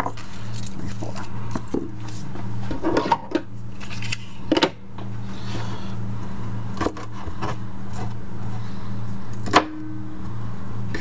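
Garlic cloves being peeled and then cut with a chef's knife on a plastic cutting board: a few sharp knocks of the blade on the board and small rustles of the papery skins, over a steady low hum.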